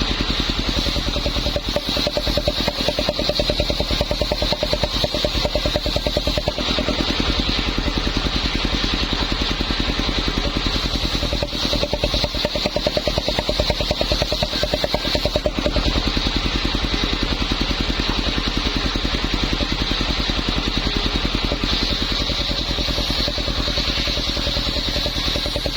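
Homemade circular saw running steadily on its engine, with a fast, even chugging and a higher whine from the blade that swells and fades several times, as when it takes wood.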